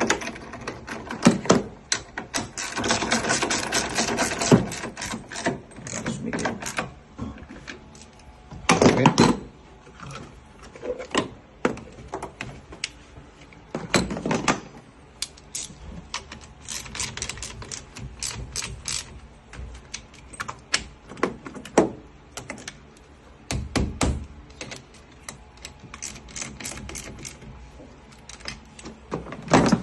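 Irregular clicks and knocks of hand work on car parts, with a dense run of rattling clicks about two to five seconds in and a few heavier thumps later, as parts are refitted in the engine bay.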